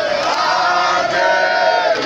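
A crowd of people shouting and chanting together, many voices overlapping, with long drawn-out cries held around the middle.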